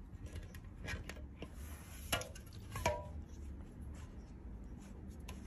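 Aluminium soda cans tapping and clinking against each other as a cat paws at them: a handful of faint, light knocks scattered through, the clearest a couple of seconds in.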